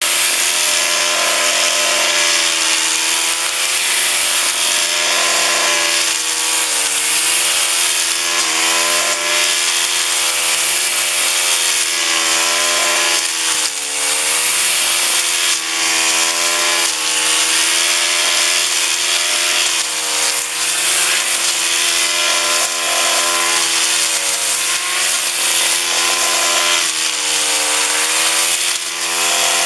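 Petrol brushcutter fitted with a BrushDestructor blade running at high revs while cutting long grass and lantana weed. The engine pitch sags briefly and picks up again several times as the blade bites into thicker stems.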